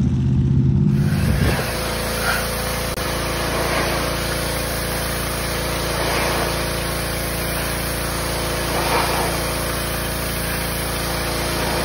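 Pressure washer running: a steady motor hum under the loud hiss of the water jet, the spray swelling now and then. It cuts in about a second in, replacing a truck engine running.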